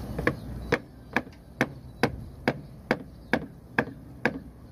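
Steady hammering, about two sharp blows a second, each with a brief ring, from a hand tool struck repeatedly during work on a PVC pipe.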